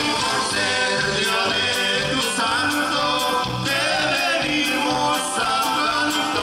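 Live regional Mexican band playing a song with singing over drums, cymbals keeping a steady beat, with guitar and saxophone in the band.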